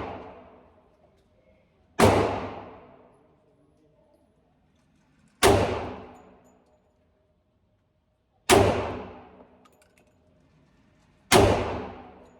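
Four single handgun shots, a few seconds apart, each with a long echoing tail.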